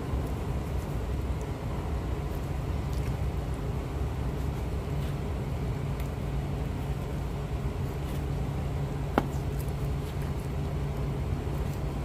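A steady low hum, with faint clicks of a knife working against a cutting board as a chicken is filleted, and one sharper tick about nine seconds in.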